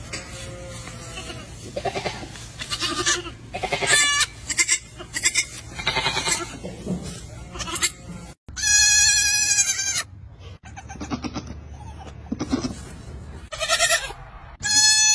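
Baby goats (kids) bleating again and again, one call after another, some short and some drawn out. One long, wavering bleat comes about halfway through, and another loud bleat comes near the end.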